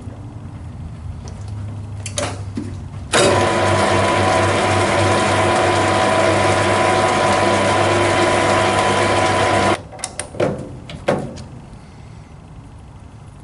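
Small metalwork lathe running with a steady whine of motor and gears, starting about three seconds in and cutting off sharply after about six and a half seconds. A few clicks and knocks of handled metal parts come before and after.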